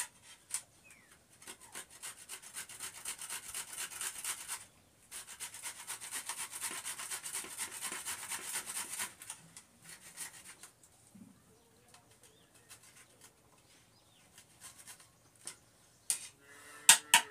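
Beetroot being grated by hand on a grater: quick rasping strokes in two long runs of about four seconds each, stopping about nine seconds in, then only occasional scrapes. Near the end, a few sharp, louder knocks and a short pitched call.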